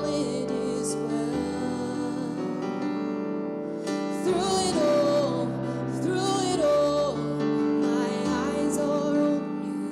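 A gospel song sung with piano accompaniment, the voice holding long, wavering notes.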